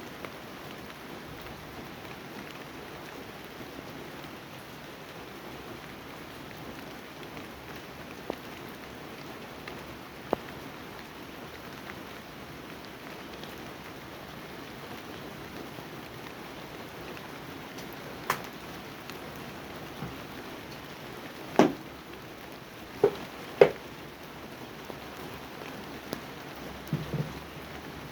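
Steady rain falling, with now and then a single heavy drop landing close by with a sharp tap; the loudest taps come in a cluster about three quarters of the way through.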